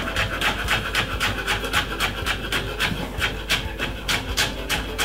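Kitchen knife rapidly chopping spring onion on a wooden cutting board: quick, even knocks of the blade on the board, about five a second.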